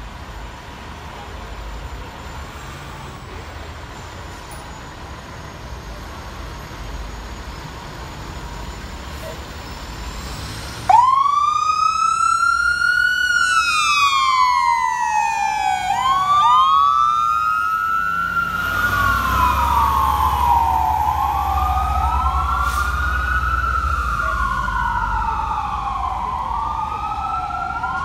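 Fire engine siren, a 2007 Spartan Gladiator pumper, switching on suddenly about eleven seconds in after a low vehicle rumble. It wails in rising-and-falling sweeps: the first is slow, then they come faster, about one every two and a half seconds, at times with two overlapping sweeps. The truck's engine rumble swells as it pulls away.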